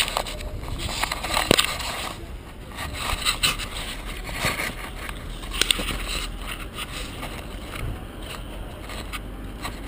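Handling noise of a GoPro action camera in its housing: fingers rubbing, scraping and knocking on the case, with scattered sharp clicks and an uneven scratchy rustle.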